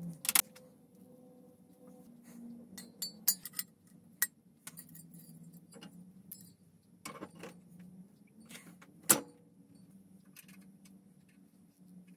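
Irregular light clinks and taps of small hard objects, like metal parts being handled, over a faint low steady hum.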